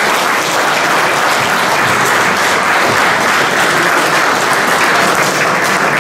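Audience applauding, a steady, continuous clapping of many hands.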